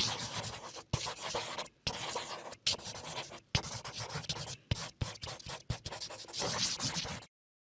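Marker drawing on paper: a run of short scratching strokes with brief gaps between them, cutting off suddenly a little over seven seconds in.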